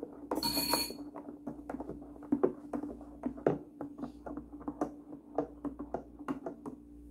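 A thin utensil stirring juice in a glass measuring jug, clinking and tapping irregularly against the glass many times, over a steady low hum.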